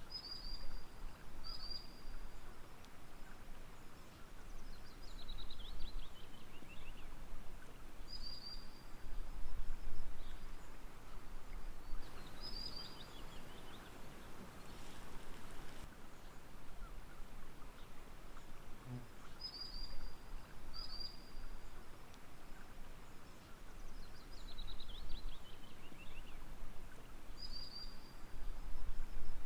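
Gentle running water as a steady hiss, with a songbird calling over it: short high whistles now and then, and three times a quick trill that falls in pitch.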